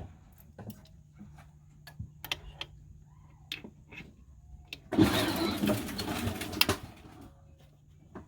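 Scattered clicks and knocks of hand tools and a breaker bar working on the serpentine belt tensioner. About five seconds in, a much louder rough scraping, rushing noise lasts for about two and a half seconds.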